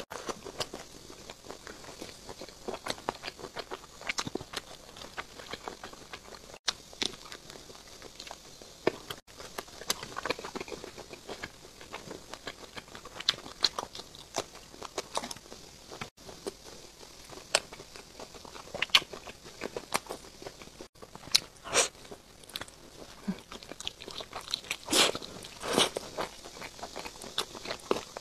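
Close-miked eating: biting into and chewing a firm grilled sausage, with crisp bites and wet mouth clicks at an uneven pace and a few louder ones in the last part.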